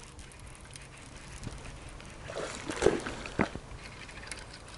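Faint water sloshing and splashing, with a sharp click about three and a half seconds in.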